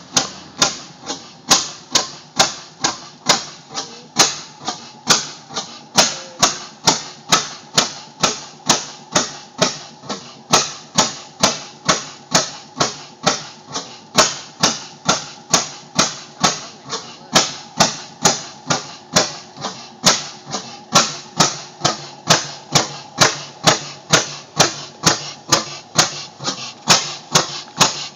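A 15-horsepower Bessemer oil field engine running slowly and steadily. Each firing gives a sharp beat, about two a second in an even rhythm.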